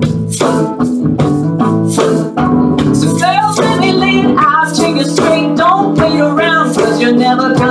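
Live acoustic song: an acoustic guitar with hand-played cajon hits keeping a steady beat, and a woman's singing voice coming in about three seconds in.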